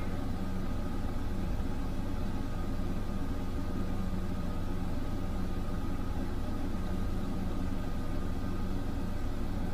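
Steady low mechanical hum with a few faint steady tones above it, unchanging throughout.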